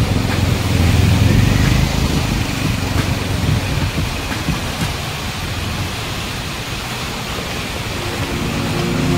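Road and wind noise from a moving vehicle: a steady hiss with a low rumble, heaviest in the first couple of seconds. Background music comes in near the end.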